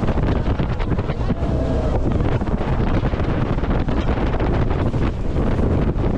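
Heavy wind buffeting the microphone of a camera aboard a speeding jet boat, a steady loud rumble with the rush of the boat and water underneath.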